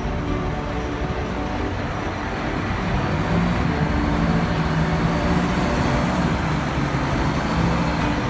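A crane's engine running steadily under load while lifting, its note growing a little louder and stronger about three seconds in.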